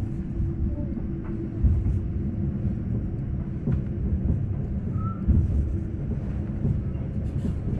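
Rhaetian Railway Bernina Express train running, heard from inside the carriage: a steady low rumble with a few light clicks and a brief faint squeak about five seconds in.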